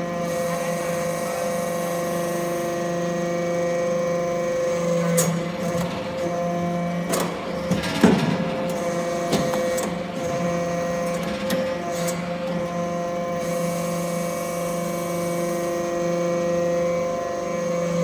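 Hydraulic metal-chip briquetting press running: a steady hum and whine from its hydraulic power unit, with knocks and clanks as the ram cycles and metal briquettes are pushed out. The loudest knock comes about eight seconds in.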